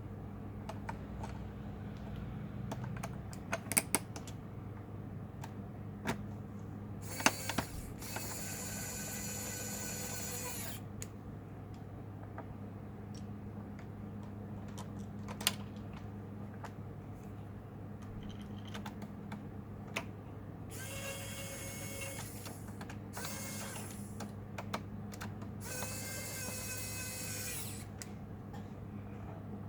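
Small screwdriver whirring in several short runs of one to three seconds as it turns the laptop's screws, with sharp clicks of tools and plastic parts being handled between the runs.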